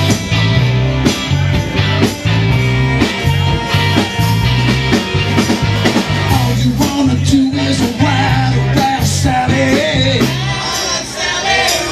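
Live rock-and-roll band playing with a steady, pulsing bass beat; about halfway through a bending lead melody comes in over it.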